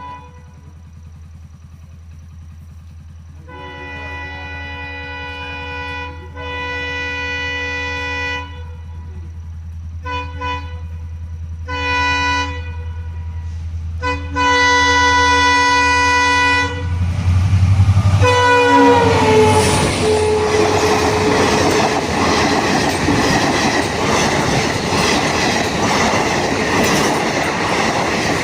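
Indian passenger train's locomotive horn sounding a series of long and short blasts over a steady low engine hum as the train approaches. Near the middle the horn drops in pitch as the locomotive passes, and the coaches follow with loud clickety-clack of wheels on rail joints.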